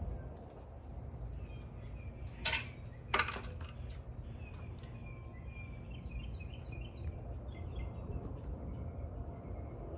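Birds chirping in many short calls over a steady low rumble. About two and a half seconds in come two short sharp noises, a little over half a second apart.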